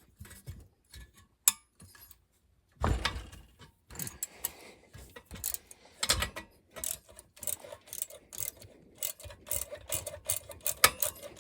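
Socket ratchet clicking in quick runs while backing out exhaust bolts, with two heavier knocks of tool on metal.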